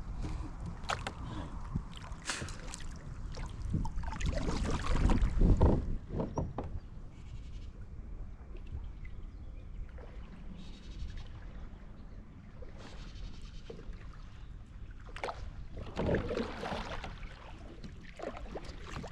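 Knocks and clicks of gear against a kayak, with wind gusts buffeting the microphone and swelling strongly twice, about four seconds in and again near the end.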